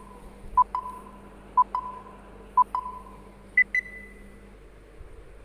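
Quiz countdown timer sound effect: a pair of short electronic beeps once a second, three times, then a final higher-pitched pair, each pair trailing off briefly.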